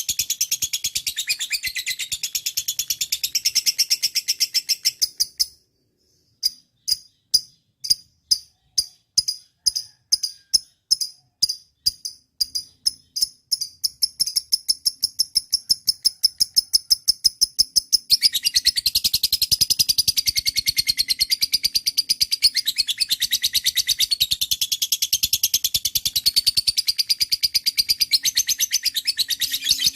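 Lovebird singing in a long run of rapid high-pitched chatter. It breaks off about five seconds in and comes back as separate chirps that speed up into a continuous trill. From about eighteen seconds it is dense chatter again.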